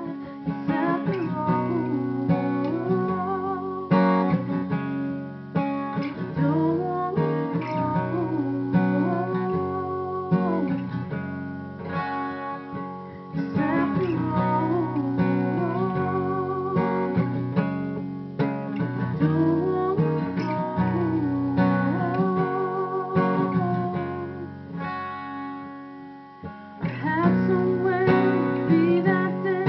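A woman singing while strumming a steel-string acoustic guitar. The verse goes in phrases, with a softer passage near the end before it builds again.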